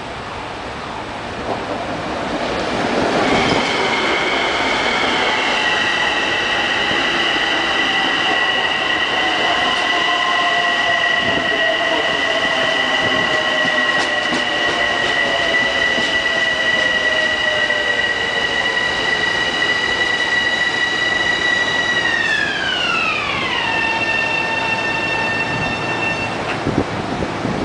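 LIRR M7 electric multiple-unit train arriving and braking, its approach swelling up over the first few seconds. It settles into a steady high electric whine with a lower tone that slowly falls as the train slows. Near the end the high whine slides sharply down in pitch over about two seconds, then holds lower as the train nears its stop.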